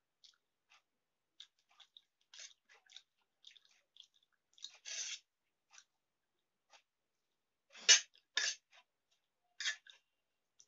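A person eating Maggi instant noodles and egg omelette up close: chewing and mouth sounds in short, separate bursts, with louder ones about five and eight seconds in.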